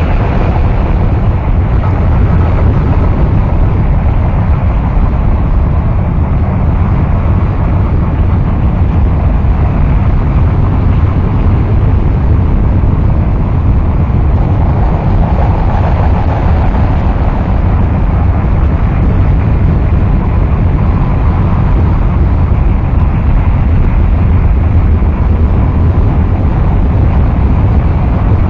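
Harsh noise wall music: a loud, dense, unchanging wall of rumbling noise, heaviest in the bass, with no beat, melody or voice.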